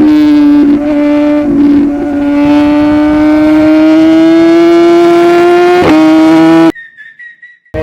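BMW S1000RR inline-four engine through a full Akrapovic exhaust, running at high revs, its note climbing slowly with a few brief breaks along the way. The sound cuts off abruptly near the end.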